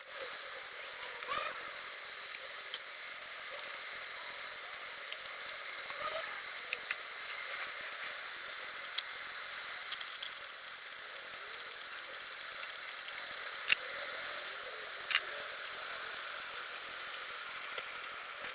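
Food sizzling in a hot pan: a steady hiss with scattered small crackles and pops.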